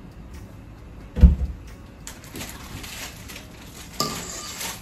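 Filling a plastic piping bag with stiff boiled icing: a dull thump about a second in, soft rustling of the bag, then a louder scrape near the end as the spatula goes back into the stainless-steel mixing bowl.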